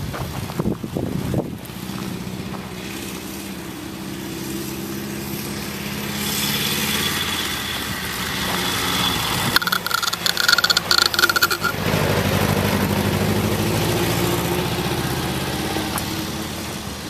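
Small vintage open car's engine running as it drives across a field, its pitch rising and falling with the throttle. It grows loud as the car passes close about twelve seconds in, after a couple of seconds of crackling noise, then fades as it pulls away.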